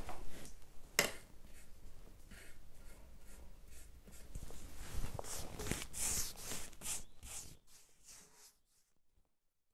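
Paintbrush strokes of chalk paint on a pine chest of drawers: repeated short, scratchy brushing, with a sharp tap about a second in, dying away near the end.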